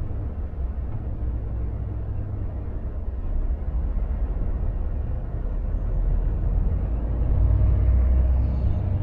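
Steady low engine and drivetrain rumble inside the cab of a Volvo FH460 truck moving slowly in queued traffic. It grows somewhat louder for a few seconds near the end.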